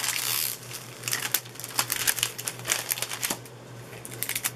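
Clear plastic cover film being peeled off a diamond painting's sticky canvas, crinkling and crackling: a rustle in the first half second, then a run of short crackles.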